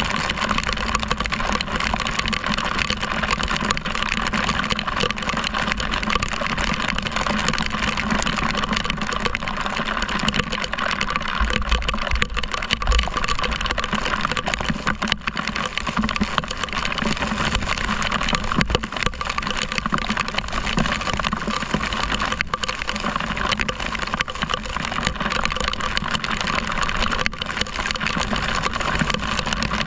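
Motor scooter riding through heavy rain: a steady rush of wind and rain with the small engine running beneath, and a rough low rumble of wind on the microphone.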